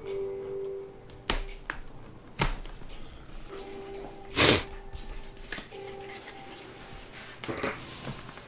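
Trading cards and plastic card holders being handled on a table: a few sharp clicks and taps, the loudest a brief crisp snap about four and a half seconds in.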